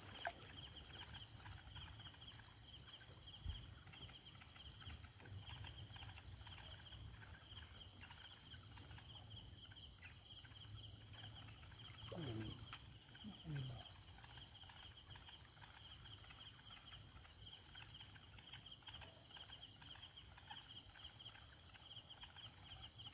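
Faint, steady chirring of night insects in a continuous high-pitched pulsing drone. About halfway through come two short calls that fall in pitch, a second or so apart, and a soft knock comes a few seconds in.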